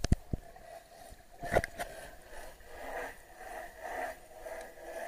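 Muffled sound picked up by a camera held underwater in the sea. There are a few sharp knocks in the first two seconds, then a steady two-pitched hum that swells and fades about once a second.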